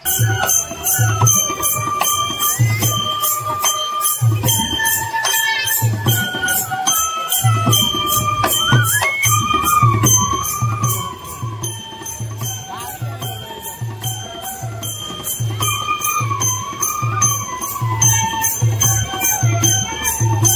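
Live traditional Nepali folk band: several bamboo flutes playing a melody together over a steady beat on a two-headed barrel drum, with a jingling percussion keeping time.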